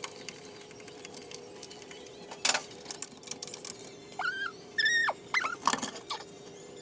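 Hand tools clicking and knocking as fasteners are taken off an engine-bay wiring component, with a few short high squeaks about four to five seconds in and another at the very end.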